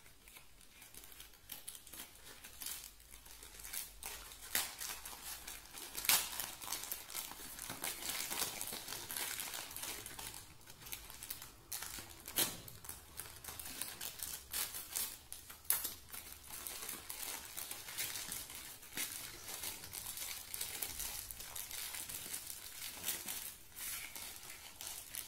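Scissors snipping through a plastic mailer bag while the plastic crinkles and rustles as it is handled and pulled open, in irregular crackles and clicks.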